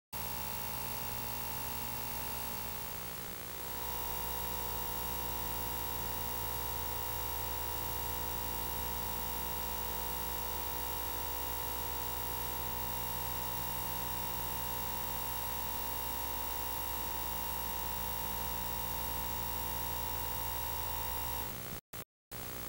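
Steady high-pitched tone over electrical mains hum and tape hiss from an old videotape transfer, with no speech or music. The tone dips briefly about three seconds in, and everything cuts off shortly before the end.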